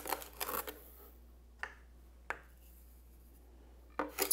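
Sugar container and measuring cup scraping and rattling as sugar is measured out. Scraping for the first second or so, two light clicks, then a harsher rasp from the container near the end, a terrible noise.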